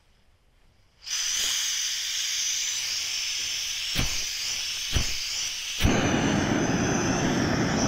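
Gas hissing from a small canister stove's opened valve, then sharp strikes of a ferro rod showering sparks onto the burner, about a second apart. On the third strike the stove lights and burns with a steady, fuller rushing flame.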